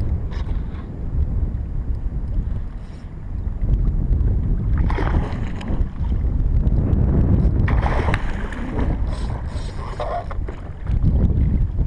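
Wind rumbling on the action camera's microphone over open sea, with water sloshing and splashing against a kayak's side. There are louder bursts of splashing about five seconds in and again around eight to nine seconds in.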